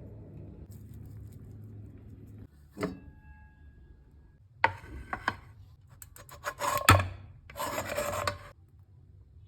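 Kitchen food preparation: a utensil scraping and rasping, with a click near three seconds, a run of scrapes and clatters from about four and a half seconds, a sharp knock near seven, and a short rasping scrape just after.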